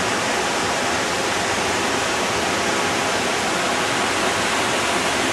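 A mountain stream running over boulders: a steady, even rush of water.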